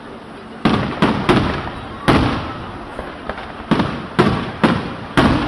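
Fireworks display: aerial shells bursting in a quick, uneven series of about seven loud bangs, each fading out in a rumbling tail.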